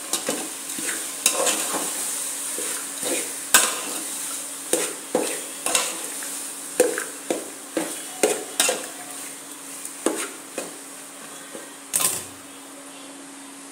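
Steel ladle stirring leafy greens in a steel pot, knocking and scraping against the pot in irregular strokes, one or two a second. A last, louder knock comes shortly before the end.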